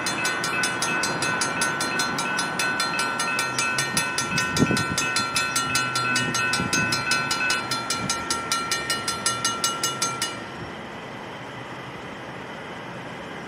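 Railroad crossing bells, a Safetran mechanical bell and a General Signals Type 3 electronic bell, ringing together in rapid, steady strokes while the gates lower. Both bells sound like they are slowly dying. They stop suddenly about ten seconds in, once the gates are down, leaving steady background noise.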